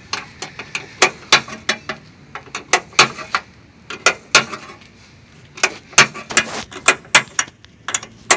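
Sharp metallic clicks and taps, irregular, one to three a second, with a short lull a little past the middle. This is a hand wrench being worked on the mounting bolts of a truck's computer control box.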